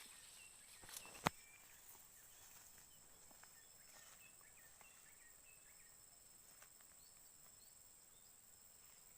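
Near silence with faint outdoor ambience: a steady high-pitched insect drone and scattered faint bird chirps, broken by one sharp click a little over a second in.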